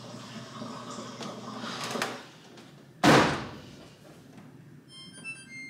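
A front-load clothes dryer's door shut with one loud thump about three seconds in. Near the end comes a quick run of short electronic beeps at different pitches from the laundry machines' control panel.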